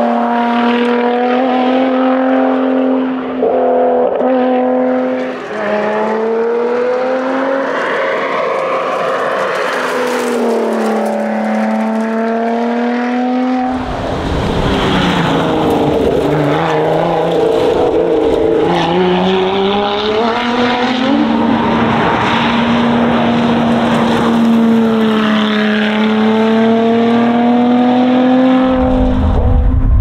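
Lotus Exige Sport 410's supercharged V6 driven hard, its note climbing as it revs and dropping at each gear change, again and again. The sound changes abruptly about halfway through and again near the end, where a deeper rumble comes in.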